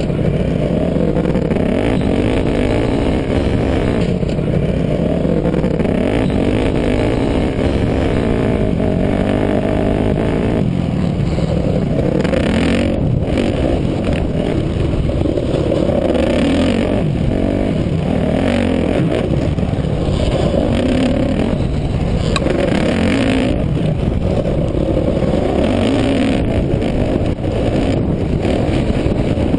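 Dirt bike engine heard on board while riding a motocross track, revving up and down through the throttle and gear changes, loud and continuous.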